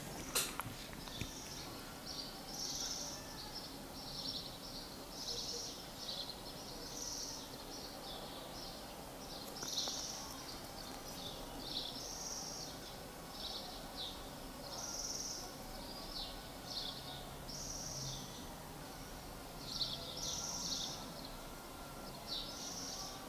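Faint background chirping: short high-pitched bursts, one or two a second, with a single sharp click about half a second in.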